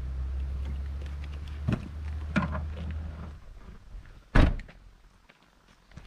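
Low wind rumble on the microphone with a couple of light knocks as camera gear is lifted out of a car boot. Then one loud thunk as a hatchback's tailgate is slammed shut, about two-thirds of the way in.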